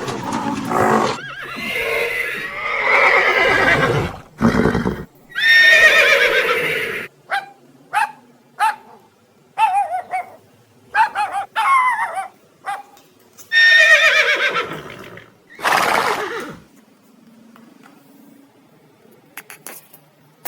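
Horses whinnying: several long, wavering whinnies with shorter calls between, stopping a few seconds before the end.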